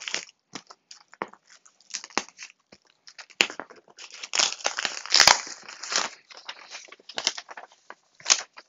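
A knife slitting packing tape on a cardboard box, then the plastic packing-list wallet being torn off the lid: irregular scraping, ripping and crinkling of tape, cardboard and plastic, with a couple of sharp clicks. The busiest, loudest stretch falls in the middle.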